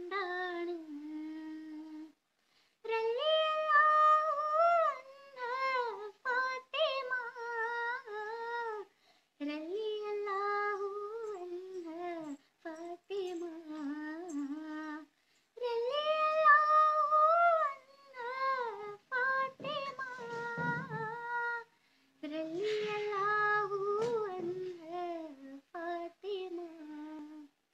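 A girl singing a Malayalam Muslim song unaccompanied into an earphone microphone, in long held phrases with ornamented, wavering notes and short pauses for breath between them.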